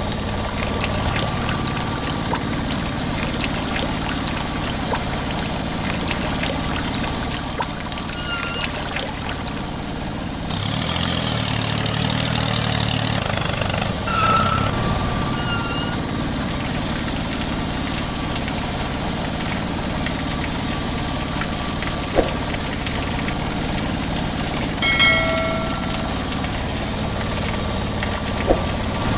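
Steady engine-like running noise from a small motor or engine. A few short high chirps and a couple of sharp clicks are heard over it.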